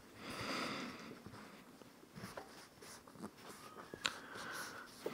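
Faint rubbing of a cloth over an AR-15 bolt carrier group as the gunk is wiped off, in two short spells, with a few light clicks of the metal parts, the sharpest about four seconds in.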